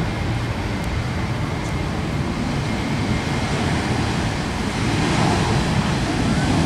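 Boeing 737-800's twin CFM56-7B turbofan engines at takeoff thrust during the takeoff roll, a steady jet roar that gets louder about five seconds in.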